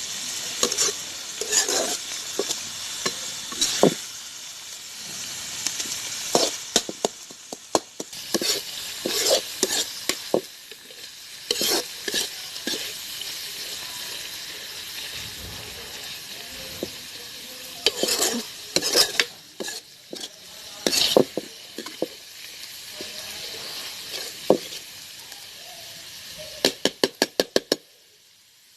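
A spoon stirring and scraping radish-leaf sabzi in a pan on the stove, over a steady sizzle as the last of its water cooks off. Near the end there is a quick run of about eight sharp taps.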